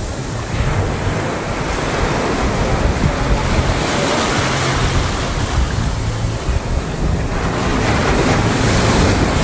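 Ocean surf washing in steadily, with wind blowing across the microphone.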